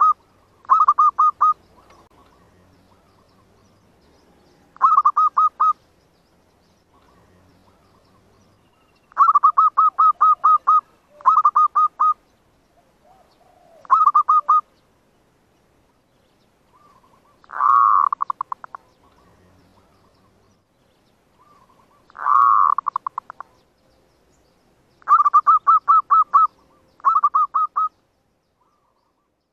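Zebra dove (perkutut, merbuk) cooing used as a lure call to draw in wild doves: about ten short bursts of rapid, evenly spaced cooing notes with pauses between them, two of them louder and opening with a falling note.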